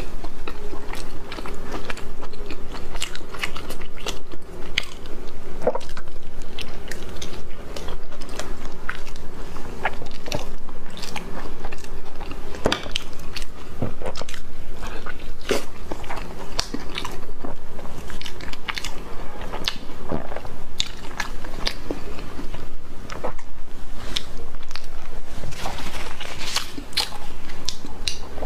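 Close-miked eating: a person biting into and chewing sauce-covered braised food, with many short, sharp wet mouth clicks and smacks running on without pause.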